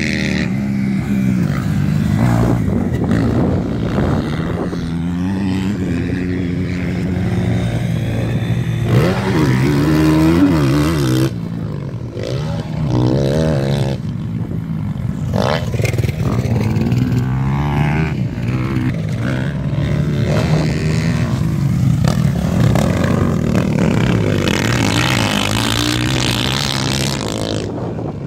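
Dirt bike engines revving hard and easing off again and again, rising and falling in pitch as motocross bikes ride the track and take the jumps. Louder passes come about nine to eleven seconds in and again around fifteen seconds.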